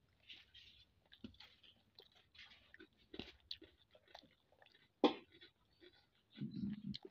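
Close-up eating by hand: irregular wet chewing and smacking, with fingers mixing rice on a plate. A sharp click about five seconds in and a short low sound near the end.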